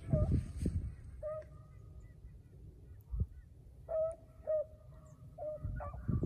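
Beagles baying on a rabbit's trail: about four long, drawn-out bawls at a steady pitch, one of them about a second in and the others in the second half. Wind rumbles on the microphone, and there is a single knock midway.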